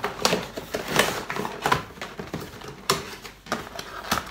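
Clear plastic cake tray and cardboard cake box being handled: irregular crinkling and crackling clicks as the tray is slid into the box and the box is closed.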